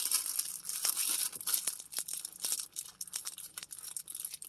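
Hands crinkling and pulling at packaging to tear it open: a papery rustle with many small sharp crackles, busiest in the first couple of seconds and thinning out after.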